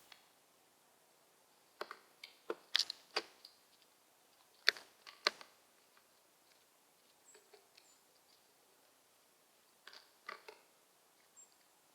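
Sharp clicks and taps of peanuts in the shell as a crow's beak picks them up and knocks them together, in a cluster early on and a few more near the end.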